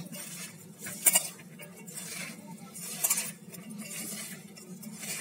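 Sliced onions being mixed by hand in a stainless steel bowl: a soft rustle of the onion slices, with sharp metallic clinks against the bowl about a second in and again near three seconds.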